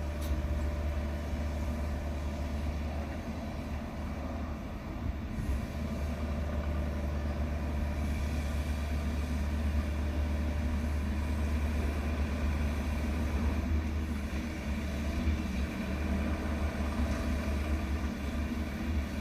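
An engine running steadily: a continuous low drone that rises and falls slightly.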